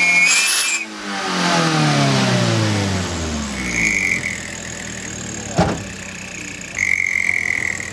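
Minibus exhaust whistle, a brass whistle fitted to the tailpipe, sounding a loud steady high note as the engine is revved, then the engine's revs fall away. The whistle sounds twice more, briefly, on later blips of the throttle, with a single sharp click in between.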